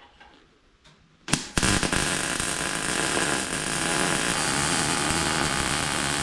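Angle grinder working a steel-tubing weldment: starts abruptly about a second in and runs steadily with a loud, even noise.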